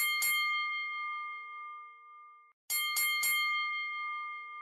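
A bell-like chime sound effect, struck three times in quick succession, its tones ringing on and fading. It cuts off short about two and a half seconds in, and the same three-strike chime then plays again.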